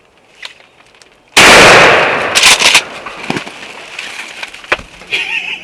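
A single shotgun blast about a second in, very loud and dying away over a second or so: a turkey hunter firing at a tom.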